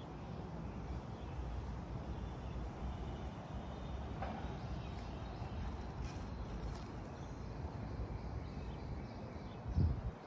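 Outdoor ambience: a steady low rumble with faint high chirps in the middle and a brief low bump near the end.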